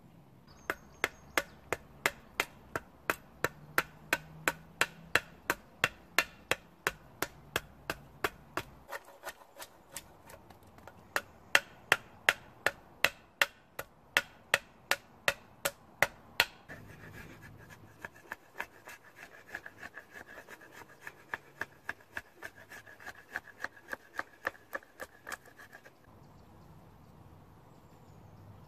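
A blade being batoned down into a green-wood stick to split away wood and flatten it: sharp wooden knocks, about two to three a second. The knocks turn softer about halfway through and stop a couple of seconds before the end.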